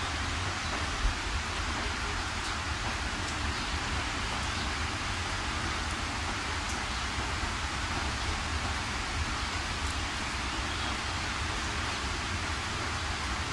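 Steady rain hiss, even and unchanging, with a low rumble underneath.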